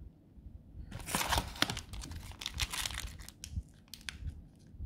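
Trading card pack wrappers crinkling in irregular bursts as they are handled and opened, starting about a second in.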